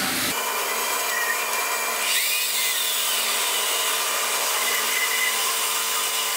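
Metal lathe running while a twist drill in the tailstock chuck bores into a spinning brass rod: a steady motor whine over a hiss of cutting.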